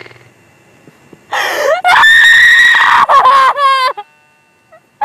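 A woman screaming: a loud, very high scream rises about a second and a half in, is held for about a second, then breaks into shorter shrieks that stop about four seconds in.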